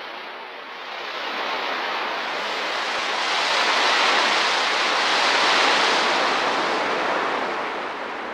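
Rushing noise without any pitch that fades in, swells to its loudest in the middle and eases off toward the end.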